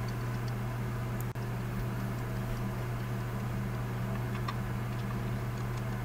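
Steady low hum with a few faint, short clicks.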